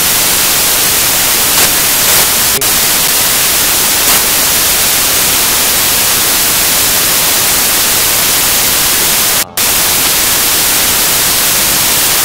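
Loud, steady static hiss, a flat rushing noise across the whole range and strongest in the treble. It cuts out for a moment about nine and a half seconds in.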